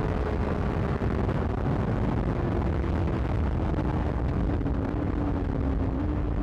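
2008 Yamaha R6's inline-four with a Termignoni exhaust, its engine note falling slowly and steadily as the bike eases off, with a small step up in pitch near the end. Heavy low rumble of wind and road noise runs underneath.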